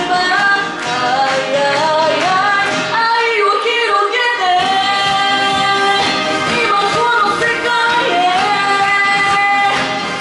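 A woman singing a pop song live into a handheld microphone over a backing track. The bass drops out for a moment about three seconds in, and she holds one long note near the middle.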